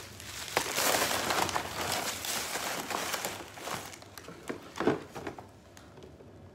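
Crinkling and rustling as something is handled, with scattered clicks and a sharp knock a little before five seconds in, then quieter.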